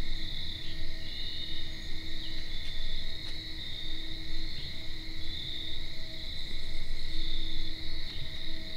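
Crickets trilling in a steady evening chorus, one high trill pulsing a little, over a constant low rumble on the microphone.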